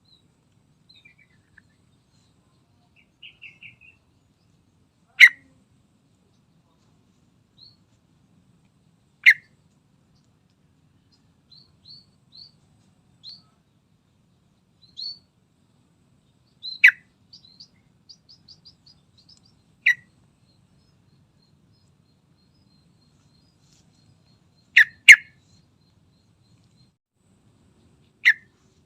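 Yellow-vented bulbul calling: loud, very short sharp call notes every few seconds, seven in all, with faint, softer twittering and short trills between them.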